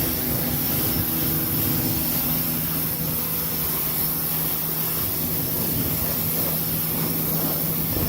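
Greenworks 1600 PSI electric pressure washer running while spraying: a steady motor-and-pump whine with the hiss of the water jet.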